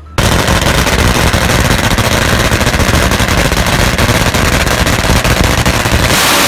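Drag-racing motorcycle engine running loud with a rapid, dense rattle from its exhaust, cutting in suddenly.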